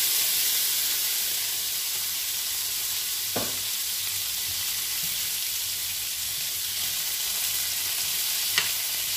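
Beef and chorizo frying in hot oil with a steady sizzle, a pile of bean sprouts just laid on top. Near the end a metal spoon clicks lightly against the pan as the food is turned.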